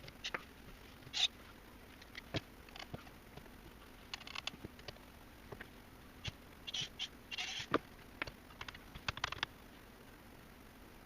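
Irregular light clicks, taps and short scrapes of small metal parts and hand tools being handled during reassembly of an Ilco 017 key duplicator; the motor is not running.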